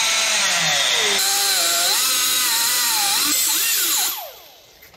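Angle grinder with a cutoff wheel cutting into the steel clinch ring of a Dana 44 rear axle shaft bearing. Its pitch dips and wavers as the wheel bites into the cut, then it is let off about four seconds in and winds down.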